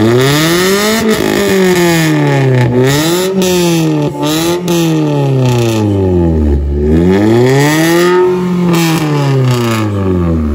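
Modified Suzuki Cultus engine and exhaust being revved about four times, the pitch climbing and falling back each time, with one short blip in the middle and the last rev held for a moment near the end. The exhaust has a cracking note, which the owner puts down to a hole in the exhaust.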